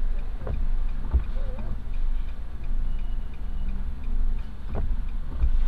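A car's indicator flasher ticking steadily, about three clicks a second, over a low steady rumble inside the stopped car. A few dull knocks stand out, about half a second and a second in and near the end.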